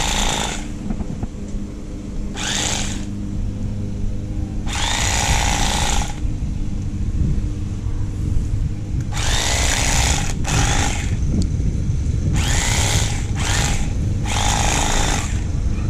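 Electric fillet knife running with a steady low motor hum as it cuts into an alligator gar. About eight short stretches of harsh rasping come and go over the hum as the blades work.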